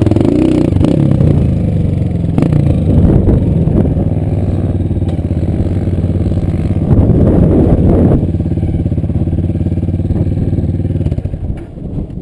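Single-cylinder four-stroke trail motorcycle engine running under load close to the microphone, its pitch rising and falling with the throttle. There is a louder burst of throttle about seven seconds in, and the engine eases off near the end.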